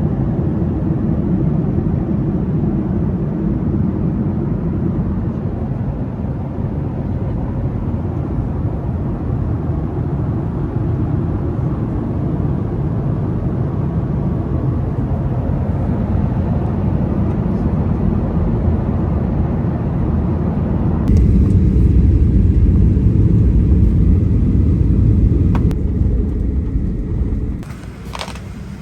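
A vehicle in motion, with a steady, loud low rumble of engine and travel noise. About three-quarters of the way in the rumble deepens and grows louder, then drops sharply near the end.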